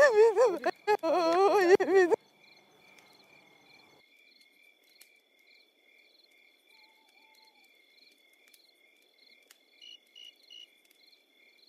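Crickets chirping steadily in a faint, even pulsing rhythm. A person's voice, wavering in pitch, is loudest over about the first two seconds and then stops.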